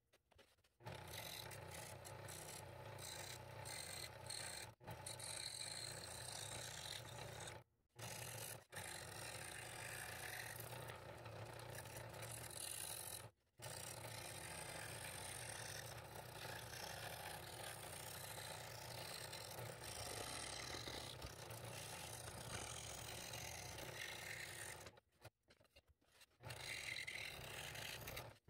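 Scroll saw running, its fine blade cutting through thin wood. The sound drops out suddenly for brief moments several times.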